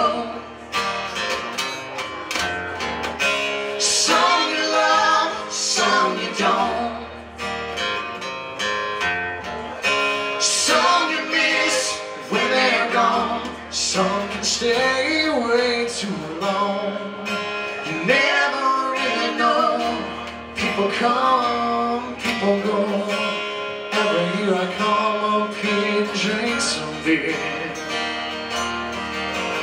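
Two acoustic guitars strumming and picking an instrumental break in a slow acoustic song, with no lyrics sung.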